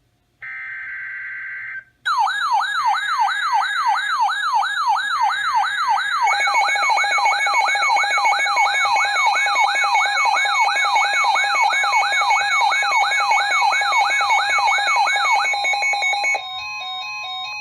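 Emergency Alert System activation for a high wind warning on a NOAA Weather Radio: a short buzzy burst of digital header data, then a siren-like alarm sweeping up and down about three times a second for some thirteen seconds over steady alert tones. Near the end a single steady alert tone continues alone, a little quieter.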